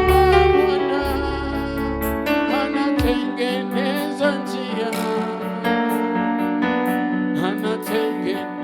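Swahili worship song played on an electronic keyboard, with sustained chords and a voice singing the melody over them; a deep bass layer drops out about three seconds in.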